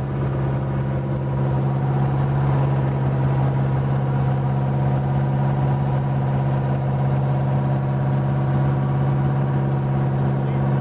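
Wooden fishing boat's engine running steadily under way, a deep, even drone that holds one pitch throughout.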